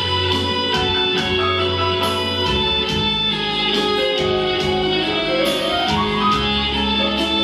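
Instrumental break of a pop song played over the hall's speakers from a backing track: plucked guitar and keyboard over a steady beat, with no singing.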